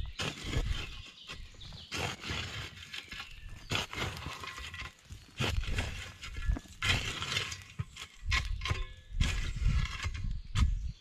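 A shovel scraping and crunching through charcoal and embers in a pit tandoor, with irregular clinks and scrapes.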